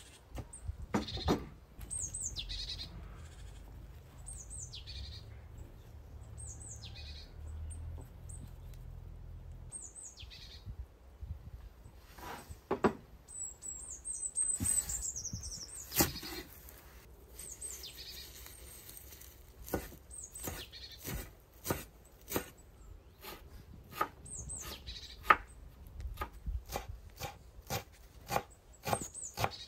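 A series of short, falling high-pitched animal calls, one every second or two, then from about halfway on a run of irregular sharp knocks and clicks.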